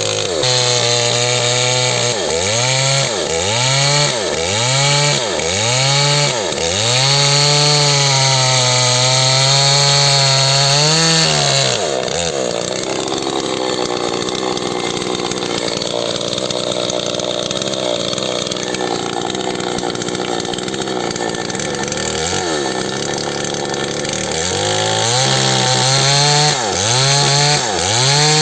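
Small chainsaw cutting wood: the engine is blipped up and down about once a second, held at high revs for several seconds, then runs lower and rougher for about twelve seconds before quick revving pulses resume near the end.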